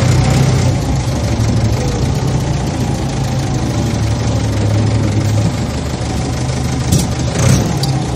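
Heavy farm machinery's diesel engine running steadily with a deep hum, with two short sharp sounds about a second apart near the end.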